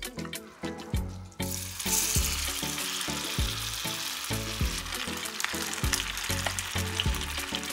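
Food frying in oil in a pan; the sizzle starts suddenly about a second and a half in. Background music with a steady beat plays throughout.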